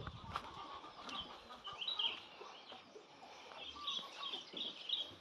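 Faint bird calls: short, high chirps scattered through, coming more often in the second half.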